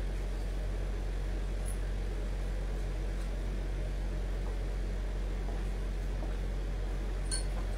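Steady low electrical hum with a hiss over it, unchanging, and a faint click near the end.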